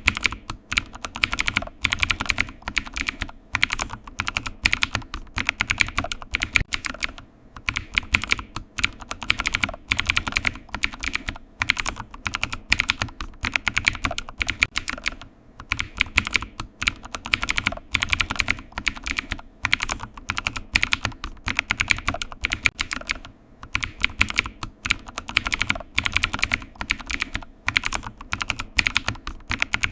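Computer keyboard typing: quick runs of key clicks, several a second, broken by short pauses.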